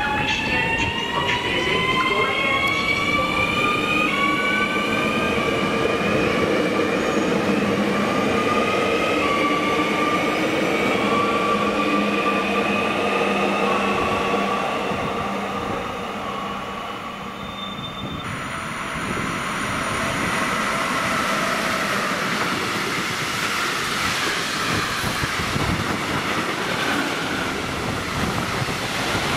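Electric multiple unit pulling away, its traction motors giving a rising, stepped whine as it accelerates. About two-thirds of the way in, the sound switches to a freight train of tank wagons passing at speed, a steady rush of wheel-on-rail noise.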